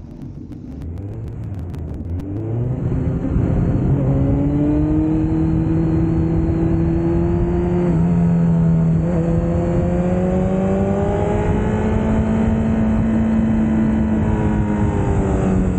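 Honda CBR1000RR's inline-four engine accelerating away from a standstill, its note climbing, with two quick gear changes about halfway through, then running on at a steady, slowly rising pitch and easing off near the end.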